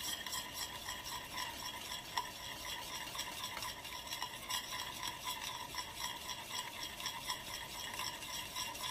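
Wire whisk stirring a thick, thickening ube halaya mixture in a stainless steel pan, steadily and without pause, which keeps the bottom from burning.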